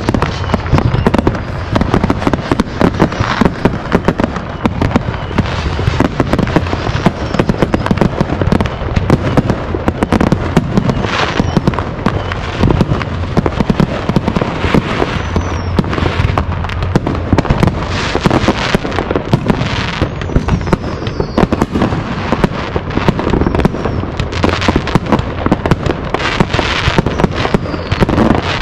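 Many fireworks going off at once in a dense, unbroken barrage of bangs, pops and crackles, with a few falling whistles.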